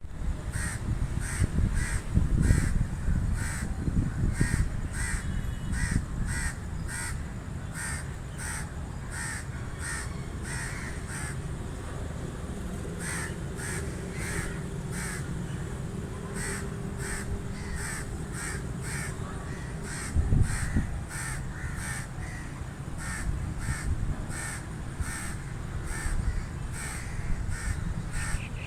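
Crows cawing, short harsh caws repeated about twice a second without a break. Under the calls is a low rumble that is stronger in the first few seconds, with a brief louder low thump about twenty seconds in.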